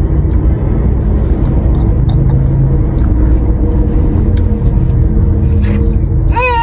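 Steady low rumble with a faint constant hum under it, dotted with small sharp clicks of a metal spoon and chewing as boiled balut is eaten. Just at the end a high, wavering cry starts.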